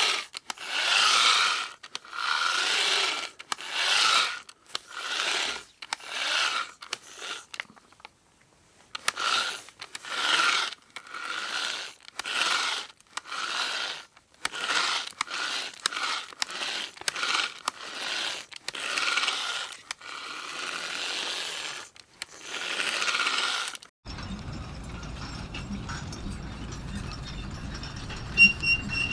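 A hand tool worked back and forth, making repeated rasping strokes of uneven length, about one or two a second, with a brief pause partway through. The strokes stop abruptly near the end and a quieter steady hum takes over.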